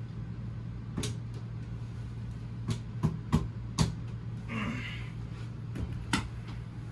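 Sharp clicks and knocks from handling a 12-volt RV ceiling light fixture, the lights being switched off, over a steady low hum.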